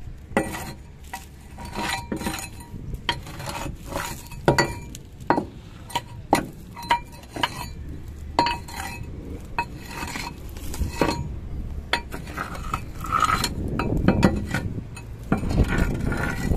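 A steel bar repeatedly striking the steel dump body and tailgate of a dump truck, knocking loose soil stuck in the frame. The blows come at an irregular pace, each a sharp metallic clank with a brief ring.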